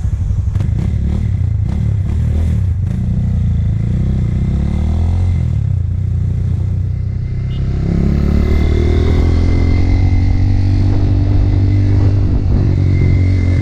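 Motorcycle engine heard from the rider's seat, running at low revs with a few sharp clicks in the first seconds. The revs then rise and shift as the bike pulls away, and it runs louder and steadier from about eight seconds in.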